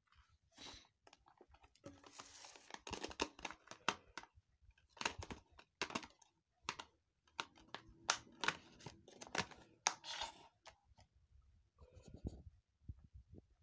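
Plastic Blu-ray case being handled and closed: a string of sharp plastic clicks and rattles with some rustling.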